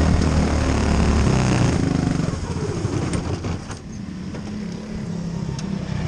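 Quarter midget's small Honda engine running hard, then backing off about two seconds in, its pitch falling as the car slows to a low, quieter run.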